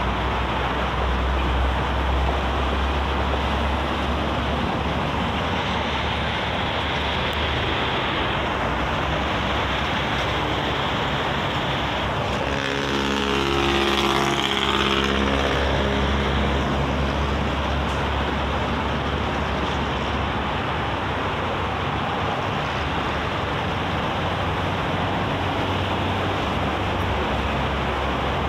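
Steady expressway traffic noise: tyres and engines of cars and trucks passing at speed, with a constant low rumble. About halfway through one vehicle passes close, louder, its pitch sweeping as it goes by.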